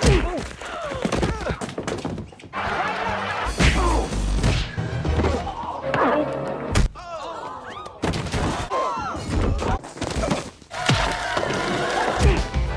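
Slapstick film and TV clips cut one after another: thuds and knocks of a body being hit and falling to the ground, over music.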